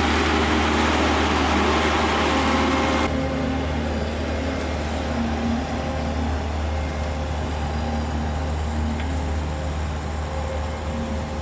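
Six-wheel amphibious ATV engines running at idle, a steady low hum. For the first three seconds a louder rushing noise lies over it, then cuts off abruptly.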